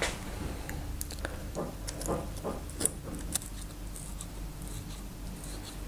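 Light metallic clicks and clinks of chainring bolts being handled and put back into a bicycle's belt sprocket by hand, scattered irregularly, over a steady low hum.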